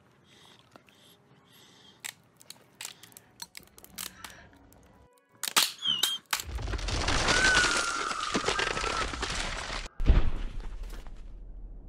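Animated-film soundtrack: scattered sharp cracks and crackles, then a loud rushing noise with a thin wavering whistle that cuts off suddenly about ten seconds in, followed by a deep boom that dies away, all under music.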